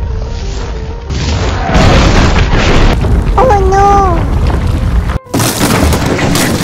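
Loud, continuous rumbling noise with a deep boom. A short wavering pitched call rises and falls about three and a half seconds in, and the rumble cuts out for an instant a little after five seconds.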